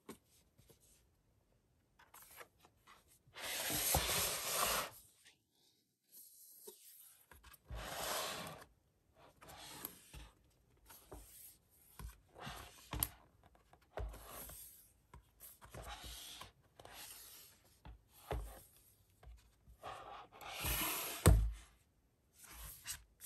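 Stiff pages of a lift-the-flap picture atlas being turned one after another: a series of papery swishes and rubs, each lasting a second or so. A louder swish near the end comes as the book is turned over onto its back cover.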